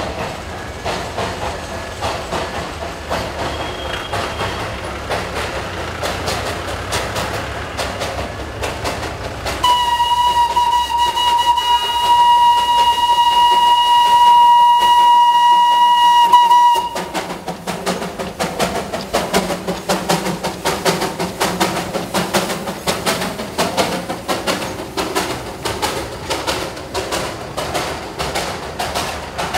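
Darjeeling Himalayan Railway steam locomotive working, with rhythmic exhaust beats, then blowing its steam whistle in one long steady note for about seven seconds. After the whistle it chuffs with quick, regular exhaust beats as it moves off.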